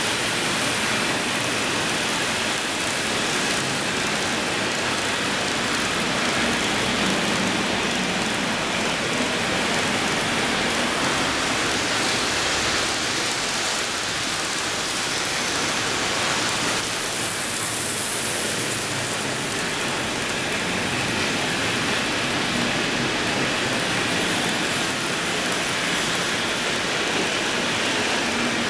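Model trains running on the layout track: a steady rolling hiss of wheels and motors, slightly stronger around the middle as a train passes close.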